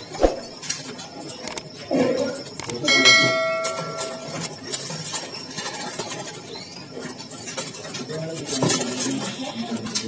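A single metallic ring about three seconds in, a clear tone that dies away over about a second and a half, among scattered light clicks and clinks of metal.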